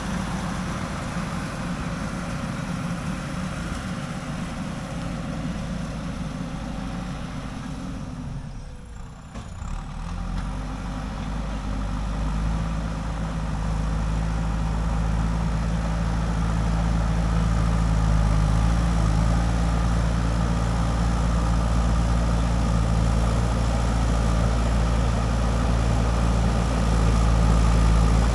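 A JCB 3DX backhoe loader's diesel engine running steadily. It dips briefly about nine seconds in, then comes back stronger and steady.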